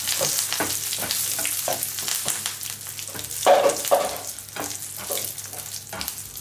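Dried red chillies and curry leaves sizzling in hot oil in a nonstick pan while a spatula stirs them, scraping and tapping the pan. The loudest strokes come about halfway through, and the sizzle weakens near the end.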